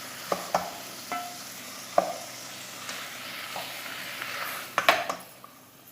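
A spatula stirring onion, tomato and spice masala frying in coconut oil in a pan: a steady sizzle, with several sharp knocks and scrapes of the spatula against the pan.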